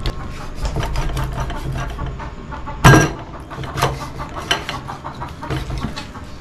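Kitchen knife slicing a milkfish on a cutting board: a run of short cutting strokes and taps, with one sharp chop about three seconds in.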